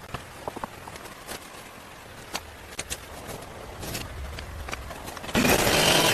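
Scattered light taps and knocks over a low steady rumble, then about five seconds in a much louder continuous sound with a wavering pitch cuts in suddenly.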